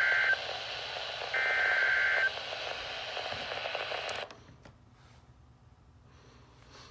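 NOAA Weather Radio Emergency Alert System (SAME) header tones: two harsh, buzzing digital data bursts about a second long, with a second's gap between them, over radio static. The tones signal the start of a warning message. The static cuts off about four seconds in, leaving a faint hiss.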